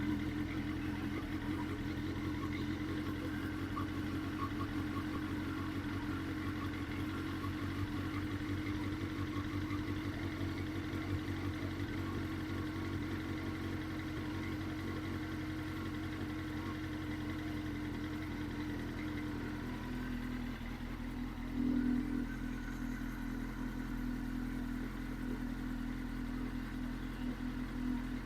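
2002 Suzuki GSX-R1000's inline-four engine idling steadily, with one brief louder swell about two-thirds of the way through.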